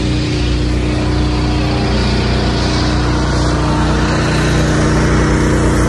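A steady, unchanging mechanical drone, an engine or motor running at constant speed, with a low hum and a hiss over it.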